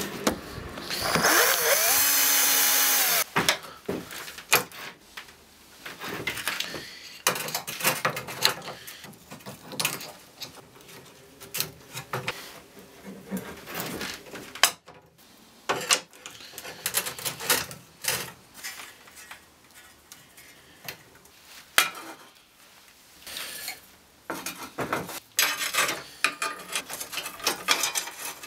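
A power tool motor spins up with a rising whine, runs steadily for about two seconds near the start, and cuts off. After that come scattered clicks and knocks of metal parts, sprockets and bike chain, being handled on a wooden workbench.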